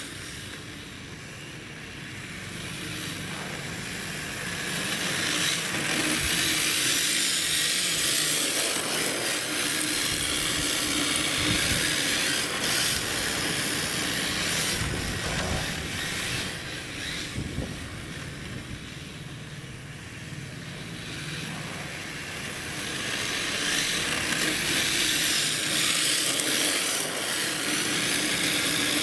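Electric radio-controlled drift car on a D-Like Re-R Hybrid chassis drifting on asphalt, its hard plastic tyres hissing and scraping as it slides. The sound grows louder about five seconds in, eases off around the middle, and rises again near the end as the car swings closer and farther.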